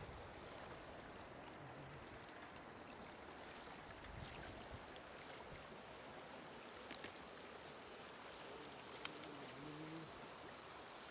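Faint wet splashing and small clicks from live catfish being handled in the shallow water inside a wooden boat, with one sharper click late on. A faint low call is heard near the end.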